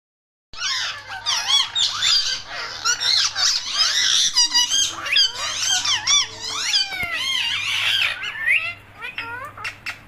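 A flock of Indian ringneck parakeets chattering and screeching together, with many overlapping calls gliding up and down in pitch. It starts about half a second in and thins out near the end.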